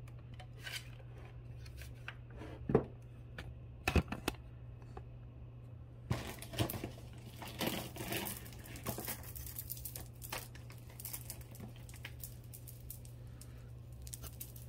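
Costume jewelry being handled and rummaged through: two sharp clicks about three and four seconds in, then a few seconds of rustling and crinkling, over a steady low hum.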